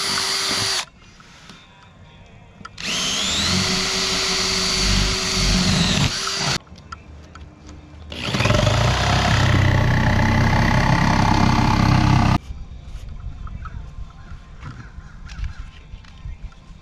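A power tool cutting through the boat's panel for a speaker opening, run in three bursts. Its motor whine rises as it spins up and falls as it stops, and it is much quieter between bursts.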